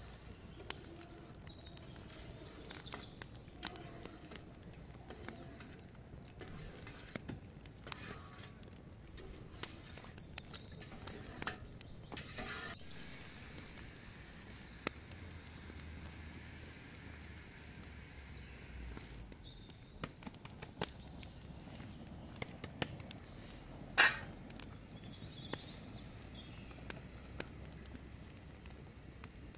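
Outdoor ambience with a few short bird chirps and scattered light clicks and knocks of a ladle and bowls against a metal cooking pot. One sharp knock about three-quarters of the way through is the loudest sound.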